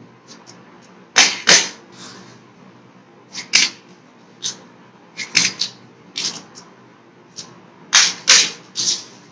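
A small matchbox being tossed and flipped over and over, landing with sharp clattering knocks, often two in quick succession, more than a dozen in all.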